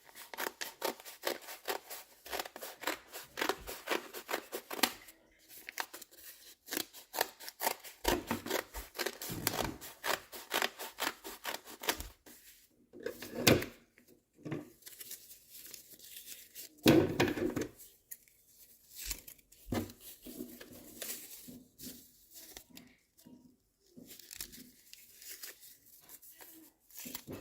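Newspaper being cut into strips: quick runs of papery snips and rips, pausing a few times, with two louder knocks midway.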